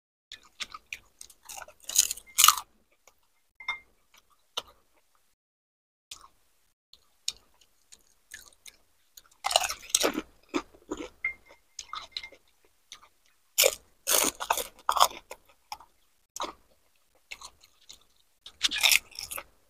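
Close-miked chewing of crisp pani puri, the filled puri shells crunching in the mouth in four bouts a few seconds apart, with small clicks between.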